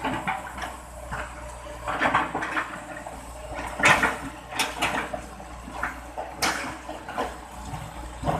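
Hitachi EX120-5 excavator working in a river. Its diesel engine runs in a steady low hum under water splashing and sloshing, with irregular clunks and rattles. The loudest splash comes about four seconds in.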